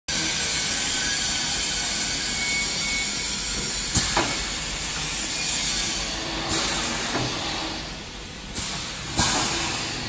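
Automatic industrial vacuum forming machine running with a steady hiss of air. Sharp pneumatic clacks, each followed by a fresh burst of air, come about four seconds in and several more times in the last four seconds as the machine cycles.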